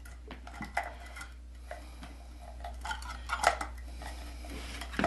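Kitchen timer parts being handled and pressed together by hand: scattered light clicks and clinks of hard parts, with a few louder knocks about three and a half seconds in and just before the end.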